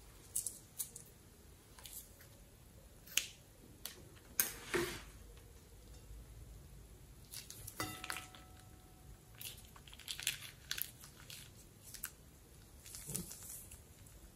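Slime squeezed out of a rubber balloon into a glass bowl: scattered wet squishes and small clicks and crackles of the balloon being handled, with a longer squelch about four and a half seconds in.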